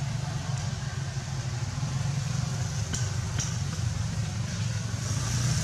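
A steady low engine-like hum, with two faint clicks about three seconds in.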